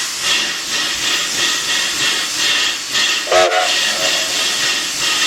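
Narrow-gauge 2-8-0 steam locomotive, D&RGW No. 315, working with its exhaust chuffing steadily at about three beats a second. A brief tonal note sounds about three and a half seconds in.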